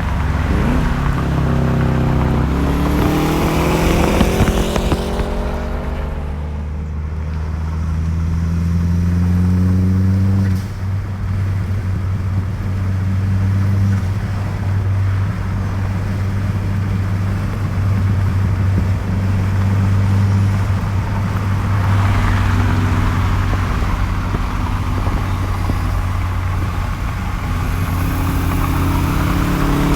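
Subaru Forester XT's turbocharged flat-four through an HKS Hi-Power aftermarket exhaust, accelerating: the engine note rises in pitch through two gears over the first ten seconds. It then settles into a steady low drone at cruise, and rises again near the end.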